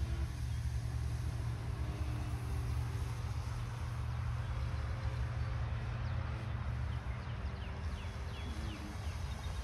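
Wind buffeting the microphone, with the faint hum of the electric motor and propeller of a 1/6-scale Balsa USA Pup RC biplane in flight, rising and falling slightly in pitch.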